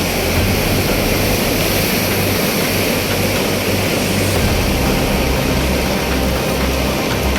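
Steady, loud rushing roar of a swollen, flooding river, with an uneven low rumble underneath.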